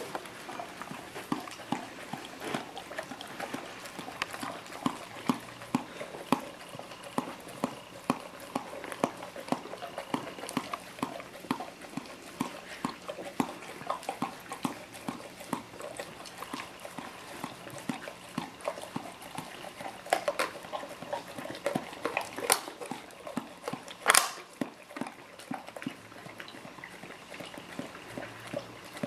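A dog licking ice cream out of a small cup held in a hand: quick, wet licking and lapping clicks, several a second. There is one louder, sharp click near the end.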